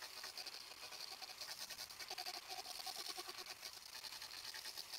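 Angle grinder fitted with an Arbortech Turboplane carbide cutter, carving wood, heard faintly as a rapid chattering with a pitch that swells and fades as the cut loads and eases.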